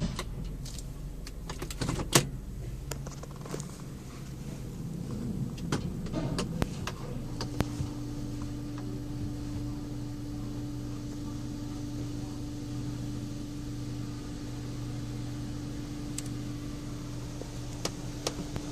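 Car wash machinery heard from inside the car: several sharp clicks and knocks. About seven seconds in, a steady motor hum starts and holds.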